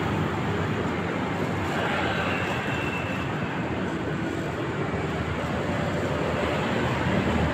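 Steady urban street background noise: a continuous low rumble and hiss with no distinct events.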